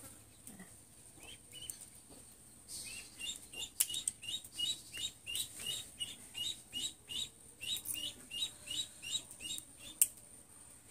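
A small bird chirping over and over, about three short chirps a second, from about three seconds in until near the end. A single sharp click near the end.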